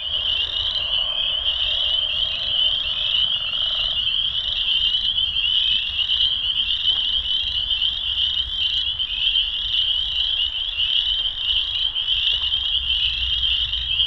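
Dense chorus of spring peepers: many high, short, rising peeps overlapping into one continuous, loud chorus. A fainter, lower-pitched call runs beneath it for the first four seconds.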